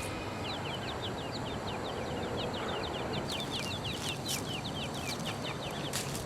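Birds chirping: a rapid run of many short, high, downward-sliding chirps, several a second, over a steady outdoor hiss.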